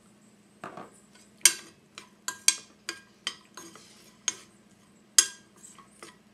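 Metal spoon stirring sprouts in a stainless steel frying pan, scraping and clinking sharply against the pan about seven times, each clink ringing briefly.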